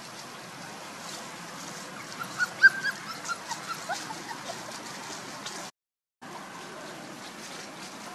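Month-old puppies squeaking and yelping in play, a quick run of short high squeaks about two to five seconds in, over a steady background hiss. The sound drops out for about half a second just before the six-second mark.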